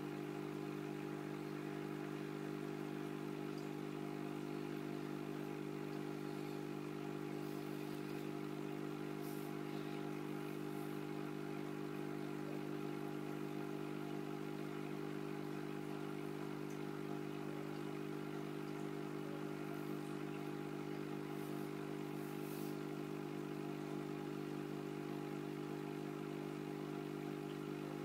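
Steady low hum of aquarium equipment running, a pump motor's drone of several held tones that never changes, with a few faint clicks over it.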